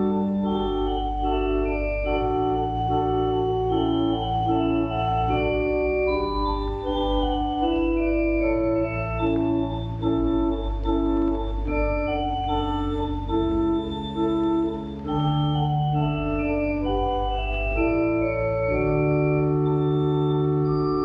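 Organ music: slow, sustained chords moving from one to the next over a held low bass line.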